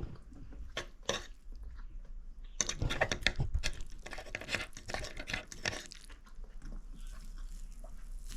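Someone eating close to the microphone: chewing and crunching with many small sharp clicks, busiest from about three to six seconds in.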